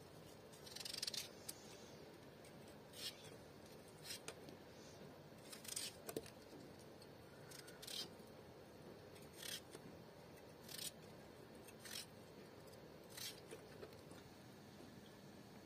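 Kitchen knife cutting a peeled raw potato into chunks by hand: about ten short, crisp cuts, one every second or so.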